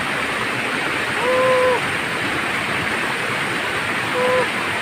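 Stream water rushing over a small rocky cascade, a steady rush. Two short steady tones sound over it, a longer one about a second in and a shorter one near the end.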